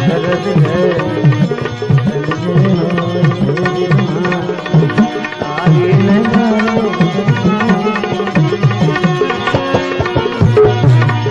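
Instrumental interlude of a Gujarati devotional bhajan: tabla playing a steady rhythm, its bass strokes bending in pitch, under a melody instrument.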